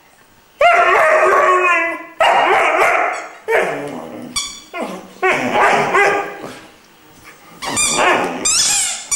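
Irish wolfhound puppy howling in a series of about six drawn-out, pitched yowls with short breaks between them, several sliding down in pitch.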